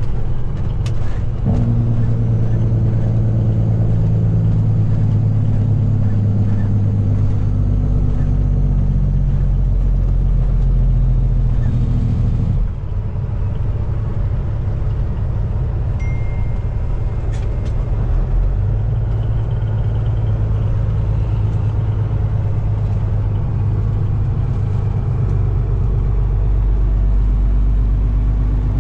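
Cat C15 diesel engine of a Peterbilt 389 semi truck running steadily under way, with a short dip in the engine note about twelve seconds in.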